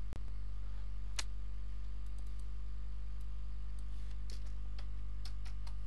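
About a dozen sharp, irregularly spaced computer keyboard and mouse clicks over a steady low electrical hum.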